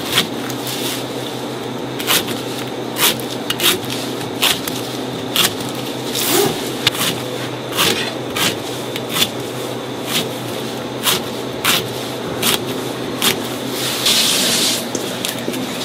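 Knife cutting fruit on a cutting board in steady, even strokes, a little more than one a second, over a steady background hum. Near the end comes a longer scraping rush.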